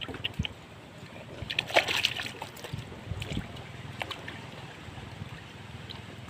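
Hands sloshing and squelching through shallow muddy water and mud while groping for fish, with a louder burst of splashing about one and a half to two seconds in.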